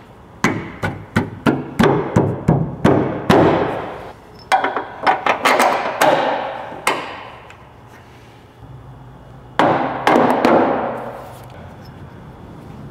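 Steel transmission mount bracket knocking and clanking against the transmission and crossmember as it is worked into place by hand: a quick run of sharp metallic knocks, then two longer scraping noises.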